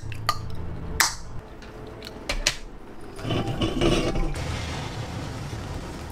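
A can of Coca-Cola being handled, with a few sharp clicks and taps of the aluminium can. About three seconds in come close-up sipping and swallowing of the fizzy drink.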